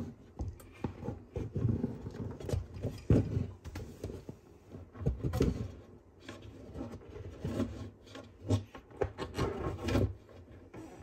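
Sulcata tortoise's shell rubbing and scraping against a plywood wall in irregular strokes, with a few sharper knocks, the loudest about three seconds in.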